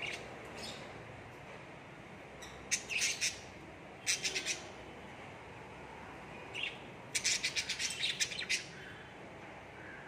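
Cockatiels chirping in short bursts: quick runs of high chirps about three and four seconds in, and a longer rapid run of chirps near the end.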